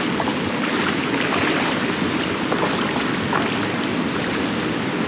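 Surf washing and splashing around pier pilings in shallow water, with wind buffeting the microphone.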